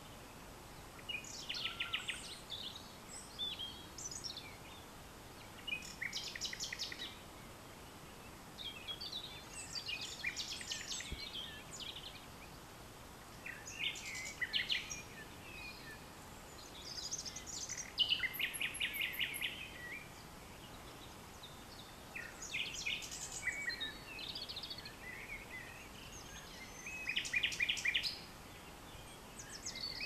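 Common nightingale singing: about ten short, varied song phrases separated by pauses of a second or two, many built of rapid runs of repeated notes, over faint outdoor hiss.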